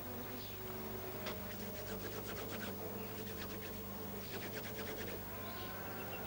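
Hands rubbing together, crushing dry plant material between the palms: quick rustling scratches in a run from about a second in, with a faint steady hum underneath.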